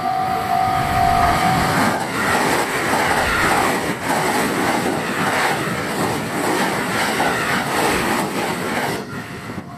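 A train passing at high speed, its wheels clattering over the rail joints in a quick, even rhythm for about seven seconds before fading. A steady high tone sounds for the first second and a half.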